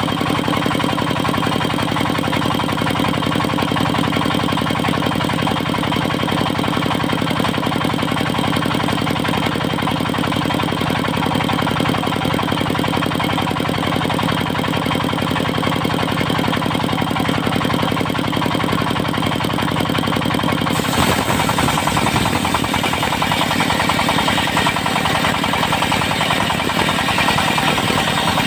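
Engine-driven circular sawmill running steadily with a continuous machine hum. About 21 seconds in the sound shifts abruptly, turning hissier and rougher.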